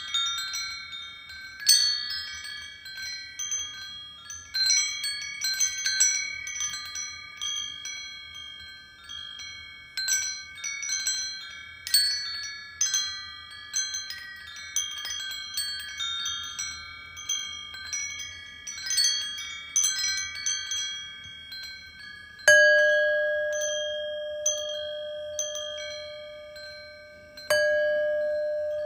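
Wind chimes tinkling in a steady scatter of irregular, overlapping strikes. About two-thirds of the way through, a deeper bell is struck, louder, and rings out long; it is struck again near the end.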